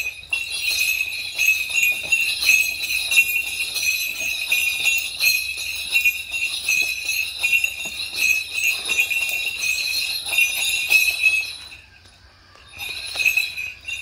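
Bells on a dancer's regalia jingling continuously as the wearer moves about. They stop about twelve seconds in, then give one more short burst of jingling near the end.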